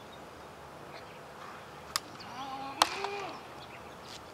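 Outdoor wiffle ball play: two sharp plastic cracks a little under a second apart, the second and louder one from the hollow plastic wiffle ball striking the bat or the strike-zone backstop, with a short shout from a player around it.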